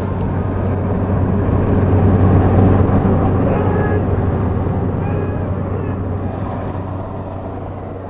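Jump plane's engine droning, with wind rushing in through the open door; the noise swells for a couple of seconds, then slowly fades.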